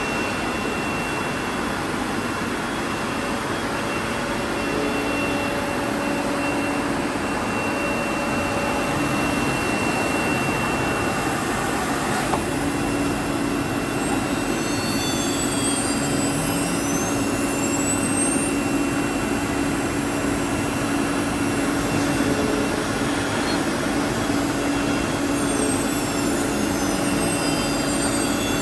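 Linear automatic-tool-change CNC router running: a steady machine noise with a steady high-pitched whine, and several brief high whines that rise and fall in the second half.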